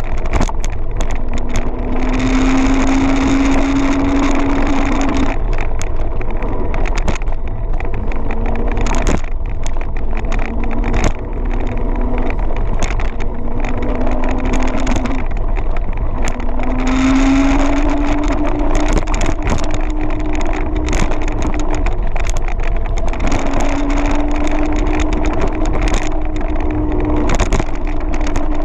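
Kaabo Wolf King GT electric scooter under way: steady wind and road noise, with a motor whine that rises in pitch as it speeds up, drops away and comes back several times. Frequent short rattles and knocks from bumps in the road.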